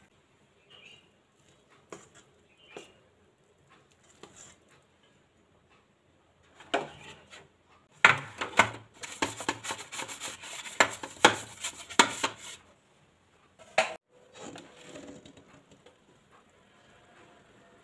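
Wire whisk stirring thick cake batter in a stainless steel bowl: a rapid clatter of metal clicking and scraping against the bowl for about four seconds, starting about eight seconds in, then a single knock.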